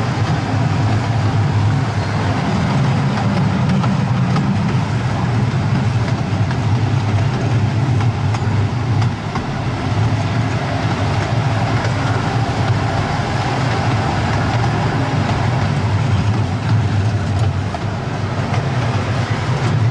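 Casey Jr. Circus Train ride cars rolling along the track, a steady low rumble of the train in motion.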